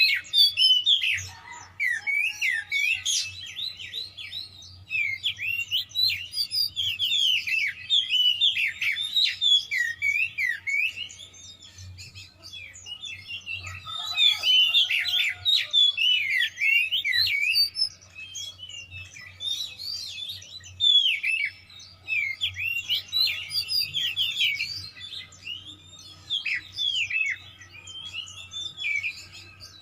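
Oriental magpie-robin (kacer) singing continuously in rapid, varied phrases of short, sliding whistled notes, briefly easing off twice. This is the loud, full 'gacor' song packed with mimicked phrases ('full isian'), the agitated fighting-mood singing that keepers call 'emosi'.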